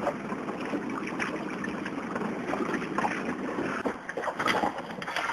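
Water lapping and splashing close to the microphone, with many small irregular clicks and crackles.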